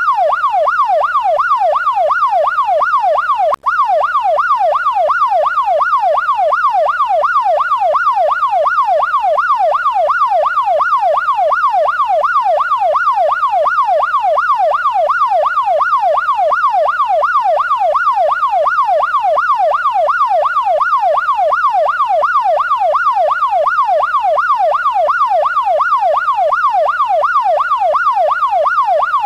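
Electronic police siren on its fast yelp, the pitch sweeping up and down about twice a second without pause. There is a split-second dropout about three and a half seconds in.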